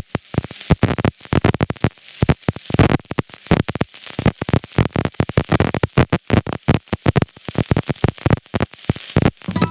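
Shielded metal arc (stick) welding with a 6013 rod: the arc crackles and sizzles with dense irregular pops as the weld is run. It starts abruptly and cuts off just before the end.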